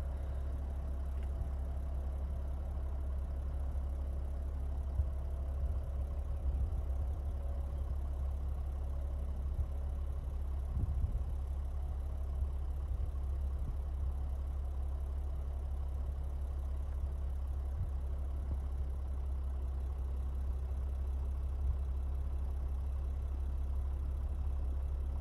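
Land Rover Defender 110 engine idling while stopped, a steady low hum with faint hiss over it.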